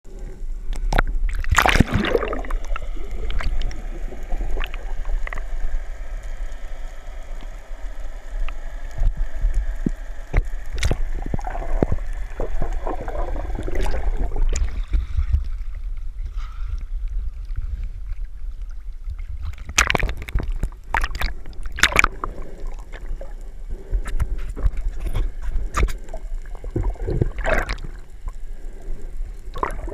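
Underwater sound picked up by a camera held just below the surface: a steady low rumble of moving water with bursts of bubbling and splashing now and then, most of them near the start, around twenty seconds in and near the end.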